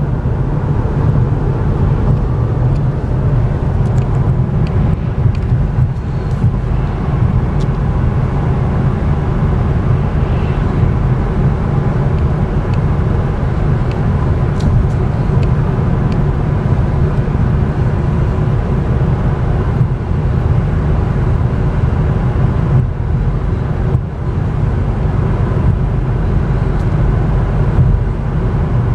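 Steady road and tyre rumble heard from inside the cabin of a 2014 Cadillac ELR being driven, with no engine note standing out.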